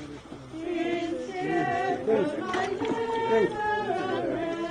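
A group of mourners singing together, several voices holding long, wavering notes.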